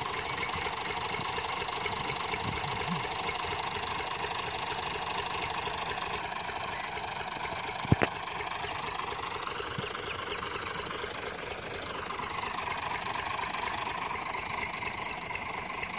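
Massey Ferguson 240 tractor's three-cylinder diesel engine idling steadily, with one short sharp knock about halfway through and a gentle rise and fall in the engine note soon after.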